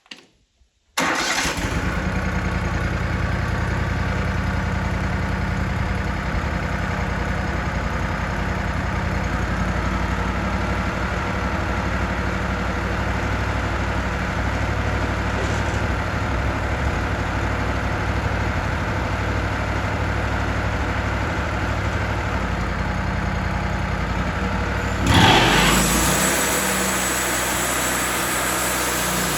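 Wood-Mizer LT40 portable band sawmill running at a steady working speed, with a deep engine hum. It comes in abruptly about a second in, surges louder briefly about 25 seconds in, then carries on with a changed tone.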